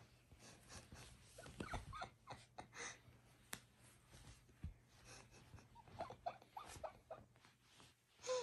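Ragdoll cat wrestling and biting at socked feet: soft scuffling of fur against fabric and blanket, with a few brief squeaky sounds, the loudest near the end, and a single sharp click in the middle.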